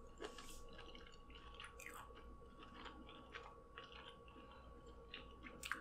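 Faint, close-miked chewing of a soft mouthful of seafood in alfredo sauce: many small, irregular wet mouth clicks and smacks.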